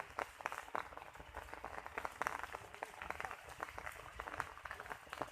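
Water splashing and pattering, many small irregular splashes close together.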